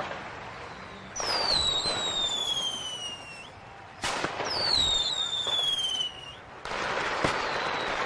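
Fireworks going off in a series of bursts with crackle. The first two come about a second and about four seconds in, each with a high whistle that falls slowly in pitch for about two seconds. A third burst comes near the end, followed by a sharp crack.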